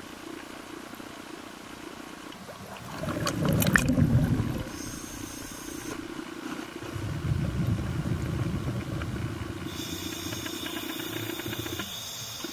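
Water sloshing and splashing as the camera breaks the sea surface and goes under, about three seconds in. After that comes a muffled underwater rumble.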